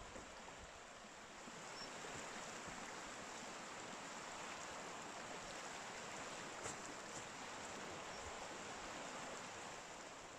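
Shallow river rushing over rocks: a steady, even splashing and hiss of flowing water that swells a little a couple of seconds in and eases off near the end.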